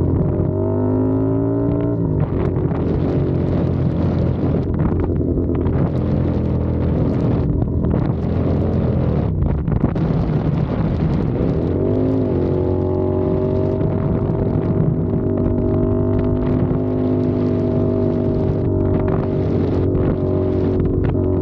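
CFMOTO 450SR parallel-twin engine running under way, rising in pitch in the first couple of seconds. About twelve seconds in the pitch rises and falls quickly, then holds steady. Wind noise buffets the microphone throughout.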